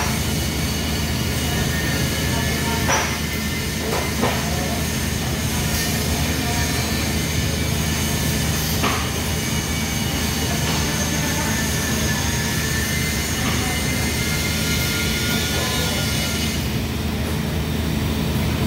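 TIG welding arc on carbon steel pipe, running steadily with a high hiss over the low hum of the welding setup, with a few short clicks. The hiss drops away near the end as the arc is broken.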